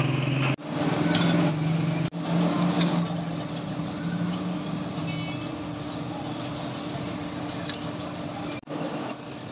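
Forge air blower running steadily with a constant hum, feeding a charcoal fire as a blade heats in the coals. A few light metal clinks can be heard over it.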